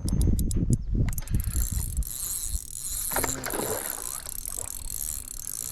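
Spinning or casting fishing reel clicking in quick bursts as a hooked bass is played, with a brief rush of noise a little after three seconds in.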